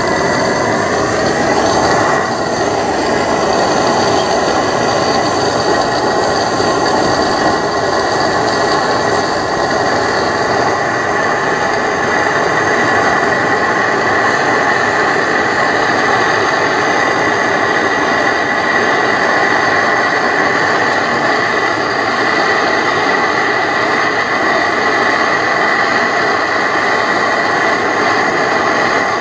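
Gas blowtorch burning with a steady hiss and a faint whistle, played on a stuck PTO seal housing to heat it free; it shuts off suddenly at the end.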